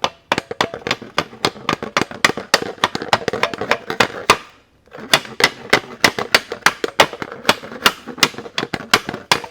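Rapid light hammer taps, about five a second, driving a press-fit metal dB killer baffle out of a motorcycle slip-on exhaust canister. The tapping pauses briefly a little past the middle, then carries on.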